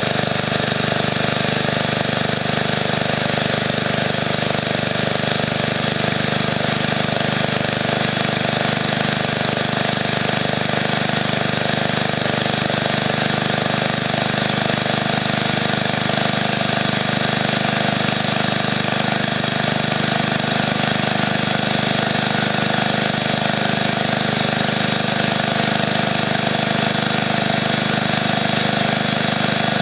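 MTD riding mower's small gasoline engine running steadily. It is left running to clear a carburetor the owner believes is gummed up.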